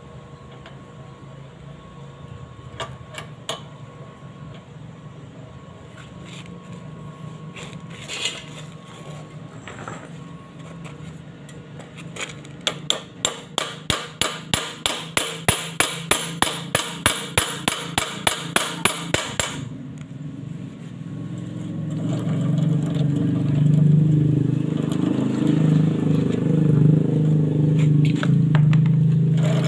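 Hammer blows knocking a steel chain sprocket onto a jackshaft, about three strikes a second for some seven seconds, starting about twelve seconds in. Then a Honda GX small single-cylinder engine runs, getting louder from about twenty-one seconds in.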